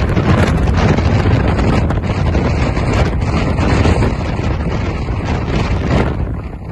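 Strong storm wind buffeting the microphone in a loud, steady rumble, over the noise of a rough, stormy sea. It eases slightly near the end.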